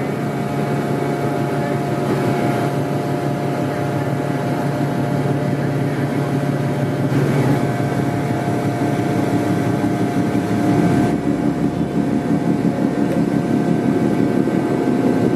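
Passenger RORO ferry's diesel engines droning steadily as the ship passes close: a low hum with a few steady tones above it. A deeper rumble joins about eleven seconds in, as the stern comes by.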